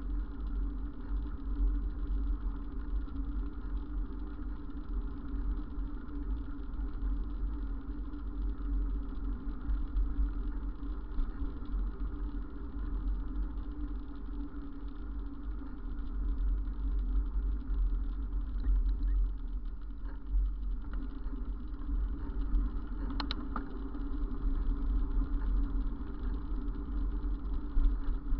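Steady low rumble of road vibration and wind on a camera mounted on a moving bicycle, mixed with the running engines of street traffic. A short high squeak comes about three-quarters of the way through.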